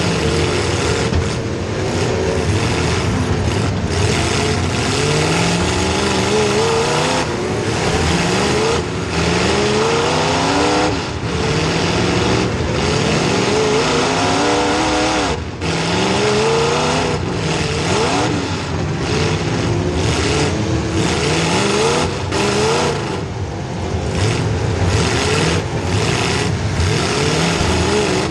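Small-block Chevy V8 in a demolition derby car, revved hard and repeatedly: the pitch keeps rising and falling as the car charges and backs off, with a few brief drops where the engine lets off.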